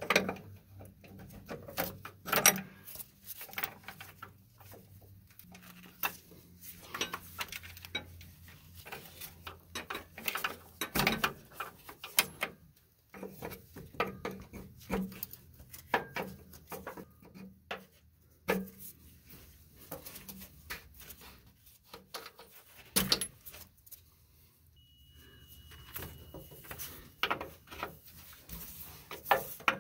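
Wrench clinking and tapping on the brass air-line fittings of a truck's air-brake tractor protection valve as they are loosened: irregular sharp metallic clicks and knocks, with a faint low steady hum underneath.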